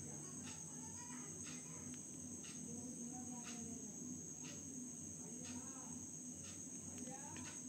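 Faint background sound: a steady high-pitched insect trill, with a soft tick about once a second.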